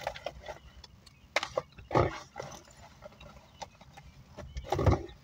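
Handling noise in a car: objects being rummaged through and moved, with scattered clicks and rustles and two louder bumps, one about two seconds in and one near the end.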